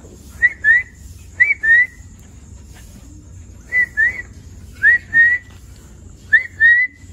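A person whistling pairs of short notes, each note sliding up and then held, five pairs in a row, calling a dog.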